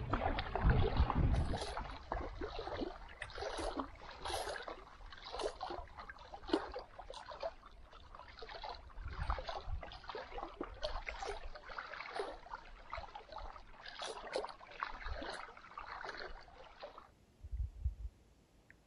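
Choppy, wind-driven lake water splashing and lapping in quick, irregular slaps, cutting off sharply about a second before the end, followed by a brief low thump.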